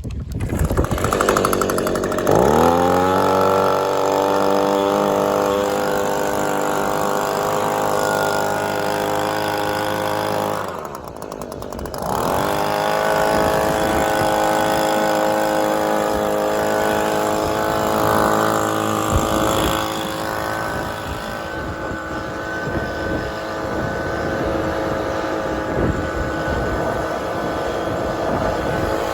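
Toro Recycler lawn mower's small engine starting up and settling into a steady run, dipping in speed for about a second around eleven seconds in before picking back up.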